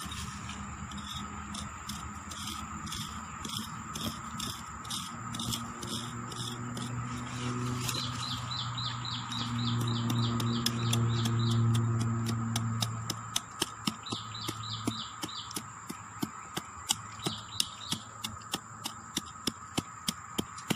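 Sharp, regular strikes of a hand digging tool into forest soil, about two a second in the second half, over a steady high drone of forest insects. A low hum swells in the middle and fades out about three quarters of the way through.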